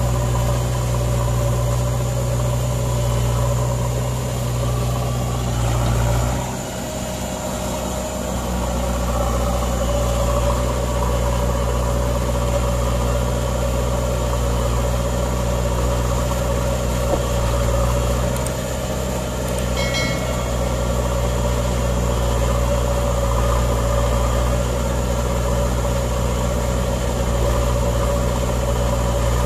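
Diesel engines of an Eicher 485 tractor and a JCB backhoe loader running together at a steady pace. The engine note drops briefly about six seconds in and picks up again, and there is a short high squeak about twenty seconds in.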